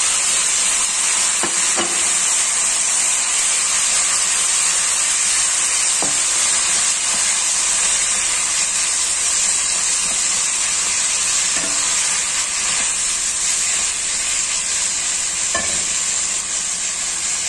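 Raw chicken pieces sizzling loudly in hot oil in a nonstick wok with garlic and ginger, a steady hiss, with a few light clicks of a spatula stirring them.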